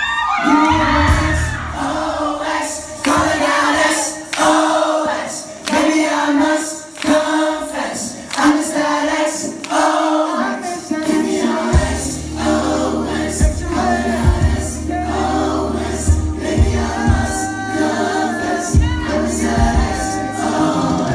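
Live boy-band pop song: several male voices singing with the band's music through the venue's sound system. For the first half the bass drops out, leaving the voices over a light beat; the bass and full beat come back in about halfway through.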